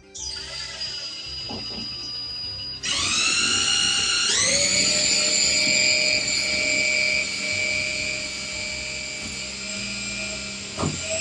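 DeWalt cordless drill/driver running in the screw hole of a grab bar's mounting flange, into the stud behind a fiberglass shower wall. Its motor whine steps up in speed twice, about 3 and 4.5 seconds in, holds steady, then winds down near the end with a couple of knocks.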